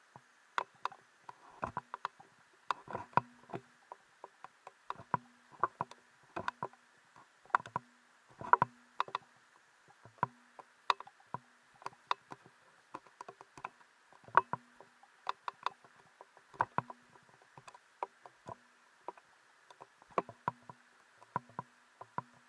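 Footsteps on the rocks and gravel of a streambed: irregular sharp clicks and crunches, about one or two a second, over a faint steady hiss.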